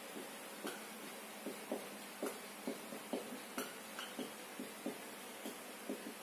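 Marker pen writing on a whiteboard: a series of light, irregular taps and short scratches as the tip strikes and drags across the board's surface.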